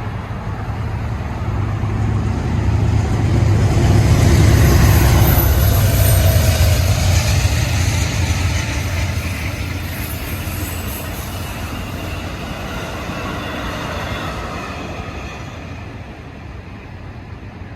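Train sound effect of a full-size train going by, growing louder to a peak about four seconds in and then slowly fading.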